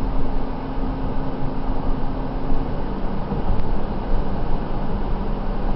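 A car driving at road speed, heard from inside its cabin: a steady low rumble of road and engine noise with a faint hum that fades about halfway through.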